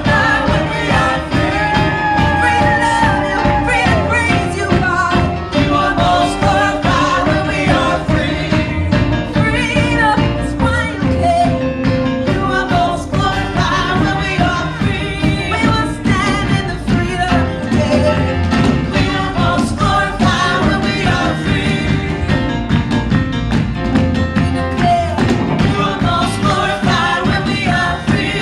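Live upbeat Christian praise and worship music: a full band with a steady driving beat and singing voices.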